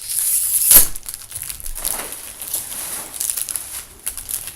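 Plastic wrapping crinkling and tearing as a trading card box is opened by hand: a run of irregular crackles, loudest about a second in.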